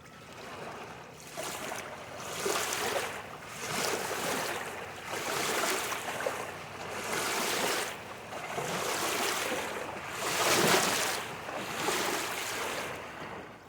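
Padma River waves washing against the bank, a hiss of water that swells and falls back every second or two.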